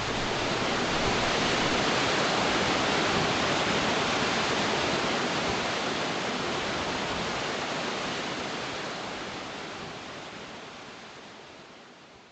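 Steady rush of falling water from a waterfall, fading out over the last few seconds.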